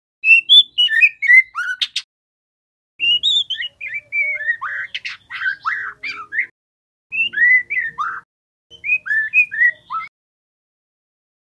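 Young male white-rumped shama singing in four bursts of quick whistled and chattering notes, with silent pauses between them.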